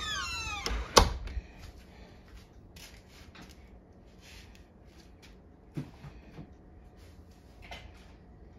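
Metal parts of an old door deadbolt being handled as it is removed. A brief squeak with sliding pitch comes at the start, then one sharp metallic clack about a second in, followed by a few faint taps.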